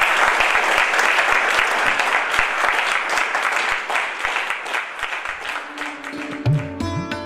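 Audience applauding, a dense patter of claps that dies down over the last few seconds. Instrumental music comes in near the end.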